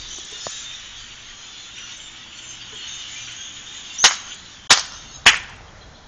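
A large flock of blackbirds calling and chattering, then three loud, sharp bangs a little over half a second apart near the end, meant to scare the flock; after the bangs the flock's calling falls away.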